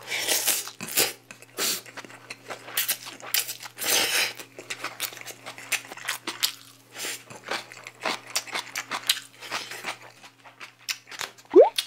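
Close-miked eating sounds: slurping japchae glass noodles, then wet chewing and smacking, made of many short clicks and smacks over a faint steady low hum. A short rising squeak comes near the end.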